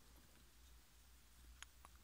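Near silence with a low steady hum, broken near the end by two faint quick clicks: a metal pin tool against a plastic wiring-harness connector.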